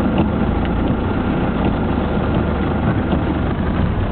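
A car driving along a flooded road: steady engine and tyre noise with water washing under the wheels.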